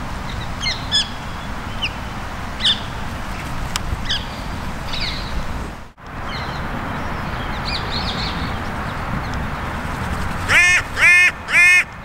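Carrion crow giving three loud caws in quick succession near the end, each call arching in pitch. Before them, fainter short high chirps from other birds.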